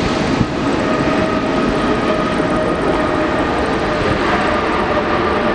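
Rolls-Royce Trent 7000 jet engines of an Airbus A330neo during its landing rollout: a loud, steady rush of engine noise with a faint steady whine through it, as the airliner slows on the runway just after touchdown.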